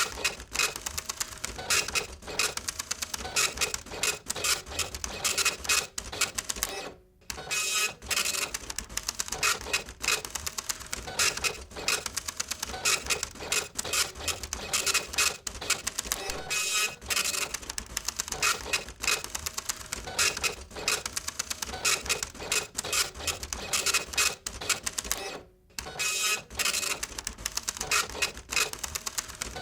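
Photocopier running through copies: fast mechanical clicking and rattling over a steady motor hum, with short pauses about seven seconds in and again near twenty-five seconds in.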